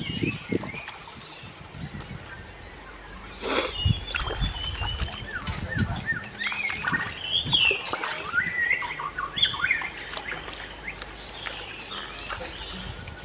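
Wild birds chirping in many short rising and falling calls, busiest in the middle, over low splashing and dripping of river water as hands clean fish in it. A single sharp crack about three and a half seconds in.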